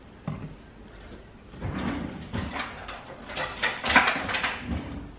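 Kitchen items clattering as they are handled below the counter: a run of clicks and knocks, loudest about four seconds in.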